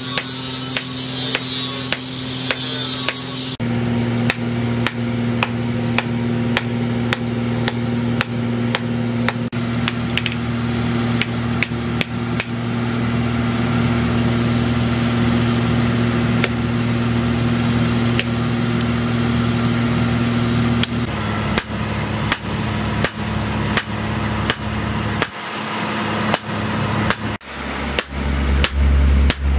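Hand hammer forging a red-hot steel knife blade on a steel block anvil: a steady rhythm of sharp metal-on-metal blows, about one or two a second, over a steady low hum.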